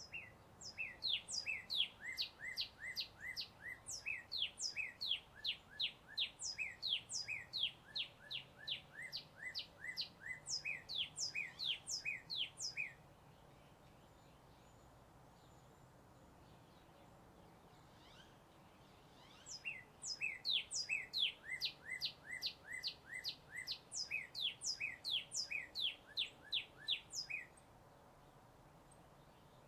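A songbird chirping a long, fast series of sharp downward-sweeping notes, several a second, in two bouts: one from the start to about halfway, then another after a pause of several seconds. Faint steady road noise sits underneath.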